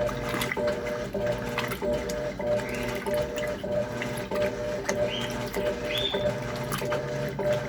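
Electrolux LTC10 top-loading washing machine running loaded on a heavy wash: a steady motor hum with short knocks about twice a second, and a couple of brief high squeaks near the middle.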